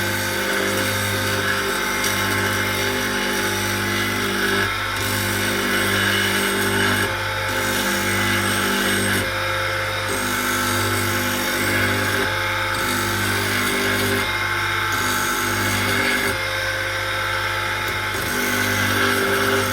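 Electric motor spinning a wooden drive wheel while a file is held against it to turn it down: a steady motor hum, with scraping of the file on hard wood that comes and goes every second or two as the tool bites and eases off. The wheel is being shaped with a raised crown in the middle so the grinder belt will self-centre.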